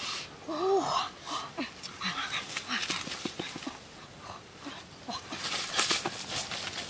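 A dog gives a short whimper, rising then falling, under a second in. It is followed by scattered rustling and knocks in dry leaves and undergrowth, loudest as people move through the vegetation near the end.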